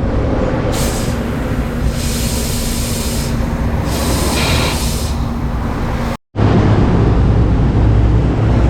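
Compressed air hissing in three short bursts from a tyre-inflator air line as the scooter tyre is pumped up, over a steady rumble of passing street traffic. The sound cuts out for a moment about six seconds in and comes back with a heavier traffic rumble.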